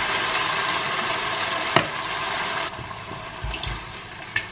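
Hot pot sizzling as canned peeled tomatoes go in: a dense steady hiss that drops away a little over halfway through. One sharp knock near the middle, and a lighter tap near the end.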